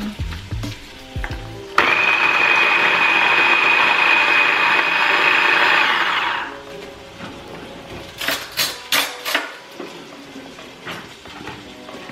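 Small electric food chopper running for about four seconds as it chops celery. It starts suddenly with a steady high whine and then winds down. Before and after, there are light clicks and knocks as the plastic bowl and lid are handled.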